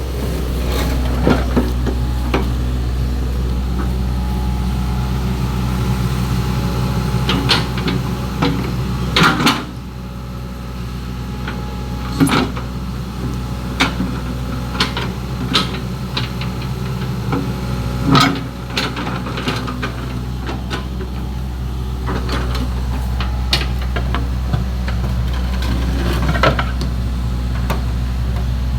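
Excavator's diesel engine running steadily, easing off briefly twice, with scattered sharp knocks from work on the track.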